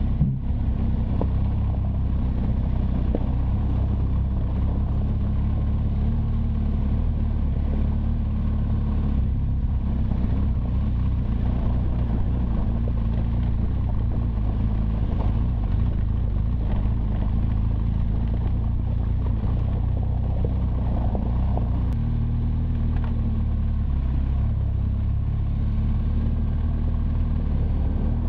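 BMW R1200GS Adventure's boxer-twin engine running steadily under way on a gravel track, its note shifting briefly about three-quarters of the way through. An even hiss of wind and road noise runs under it.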